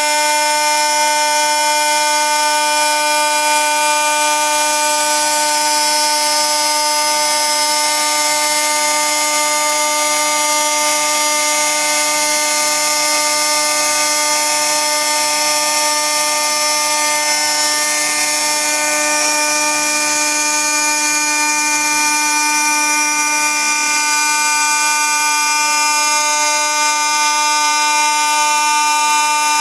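ZXX CNC 1325B glass slotting and milling machine running: a steady, high whine of several held tones over a constant hiss.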